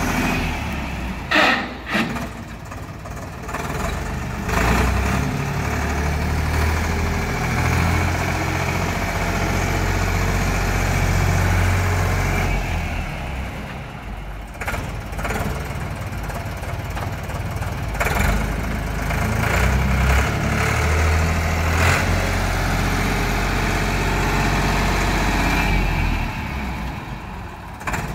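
Diesel engine of an FCY30 3-ton mini site dumper running as the dumper drives around, a steady low rumble whose level rises and falls. A couple of sharp knocks come about a second and a half in, with a few more later.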